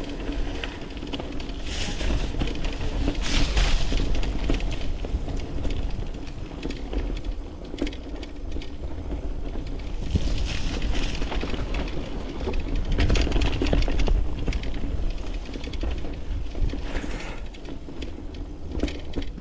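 Mountain bike riding down a dirt trail: tyres rolling over dirt and rocks, with the chain and frame rattling over bumps and wind rumbling on the microphone. The tyre noise swells into hissing surges several times.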